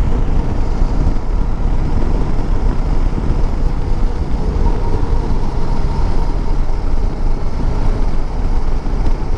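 Bajaj Dominar 400 motorcycle on the move: a steady rush of wind and road noise, with its single-cylinder engine running underneath.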